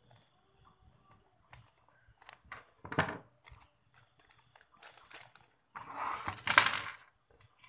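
Scissors snipping a thin plastic bag open, then clear plastic packaging rustling and crinkling as it is handled. There is a louder crackle about three seconds in, and the longest, loudest crinkling comes about six seconds in.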